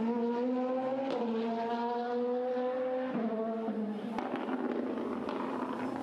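BMW M4 DTM race car's V8 engine accelerating hard. Its pitch climbs and drops back at two upshifts about one and three seconds in, with a sharp crack about four seconds in.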